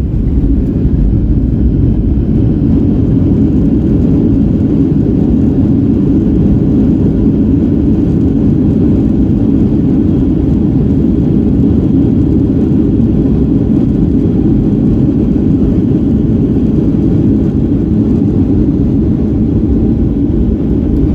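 Steady cabin noise of a Boeing 737-800 in flight: a low, even rush of its CFM56 jet engines and the airflow, heard from inside the cabin.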